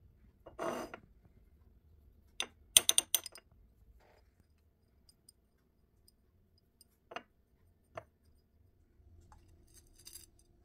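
Handling sounds from a small metal dough cutter and a ceramic saucer on a wooden worktop: a soft rustle, then a quick run of sharp metallic clinks a little under three seconds in, the loudest thing here, and a few lighter single taps later.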